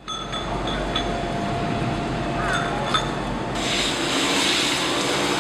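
Steady machinery rumble from a moored saury fishing boat, with a few sharp metal clinks. About three and a half seconds in the sound switches abruptly to a louder hiss of unloading noise.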